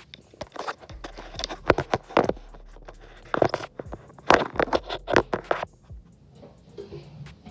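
Rough, irregular scraping and rubbing of hands handling the recording phone or camera right at its microphone, loudest through the first six seconds.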